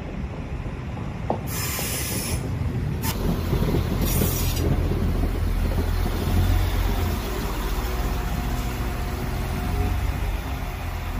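Northern Ireland Railways CAF diesel multiple unit pulling into a platform and coming to a stand, its underfloor diesel engines running with a low rumble that grows as it draws alongside. There are two short hisses, about two and four seconds in.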